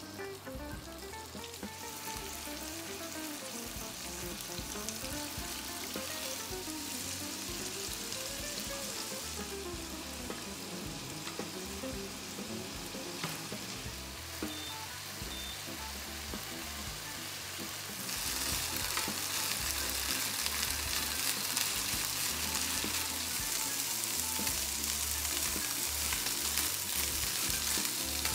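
Food sizzling as it fries in oil in a pan, growing louder about two-thirds of the way through.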